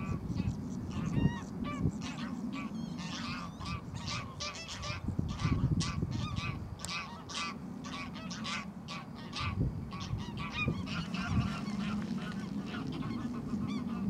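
Greylag geese honking, a rapid run of many short calls, several a second, as two geese face off and flap in the water. A steady low rumble runs underneath.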